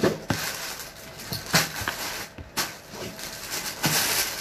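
Rustling and handling of a T-shirt as it is taken up and unfolded: several short scrapes of cloth and packaging, each with a sharp knock, a second or so apart.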